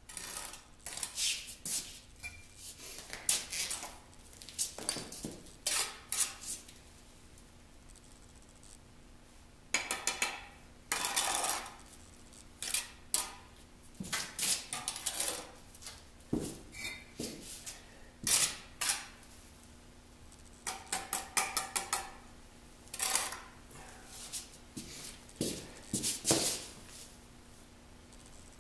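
Steel brick trowel scraping mortar and clinking against brick, in bursts of quick strokes with short pauses between them.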